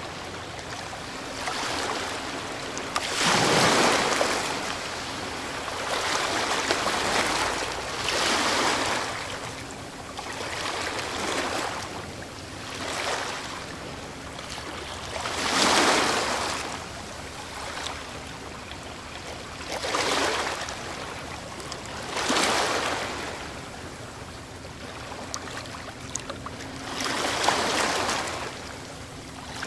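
Ocean waves breaking and washing up the shore, one surge every few seconds, each swelling and then fading into a steady hiss of water. The strongest break comes about four seconds in and another in the middle.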